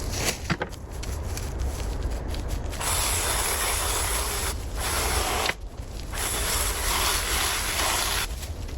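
Spray hissing in three sharp-edged bursts, a short gap between each, the last the longest.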